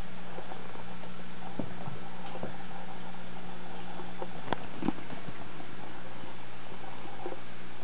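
Light taps and scuffs of a kitten's paws on a hardwood floor as it pounces on a cat's tail, the clearest pair about four and a half and five seconds in, over a steady background hum and hiss.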